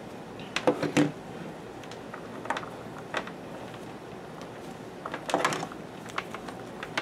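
Plastic plug-in power adapter and its cables being handled and set down on a desk: scattered clicks and knocks, loudest about a second in, with a denser cluster of clatter about five and a half seconds in.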